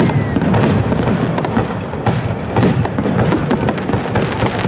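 Aerial fireworks display: many shell bursts in quick succession, sharp bangs and crackle overlapping over a continuous low rumble.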